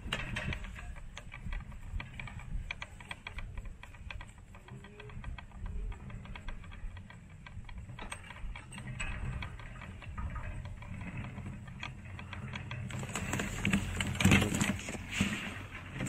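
Dense small crunching clicks over a steady low rumble, with a louder rush of noise swelling near the end.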